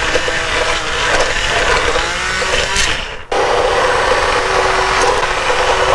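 Handheld immersion blender running in a pot of cooked spinach and dal, motor hum with a steady whine as it churns the mix to a coarse purée. It cuts off about three seconds in and starts again a moment later.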